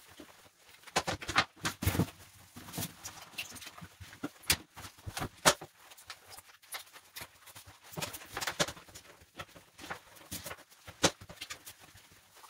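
Sped-up sounds of wiping down a toilet with a damp microfiber cloth: an irregular run of quick taps and knocks against the porcelain and seat, with cloth rubbing in between.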